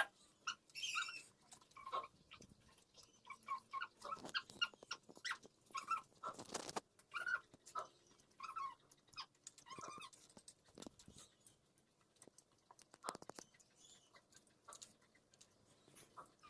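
Faint close-up eating sounds of ripe pineapple being chewed: a string of short wet clicks, smacks and squelches, with one longer rush of noise a little past the middle.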